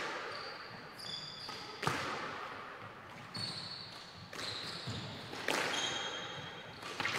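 A squash rally: the ball cracks sharply off racket and walls about every second, each hit ringing on in the court, with short high squeaks of shoes on the wooden floor in between.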